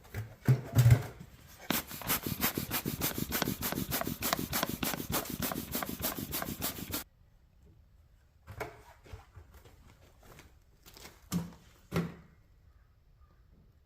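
A few knocks, then a fast, even run of scraping or rubbing strokes, about five a second, that goes on for about five seconds and stops abruptly. Several separate knocks follow.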